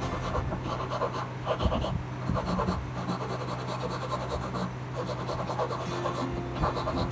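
Irregular rubbing and scraping strokes of hand work on a workpiece, over a steady low hum.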